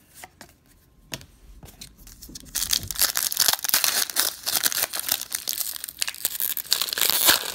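A 2013 Prestige football card pack's wrapper being torn open and crinkled, starting about two and a half seconds in and going on loud and dense. Before it come a few light clicks of cards being handled.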